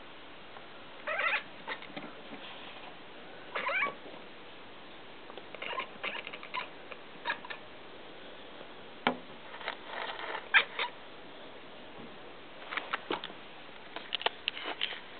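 Kitten making short bird-like chirps and trills, a series of separate brief calls with pauses between them.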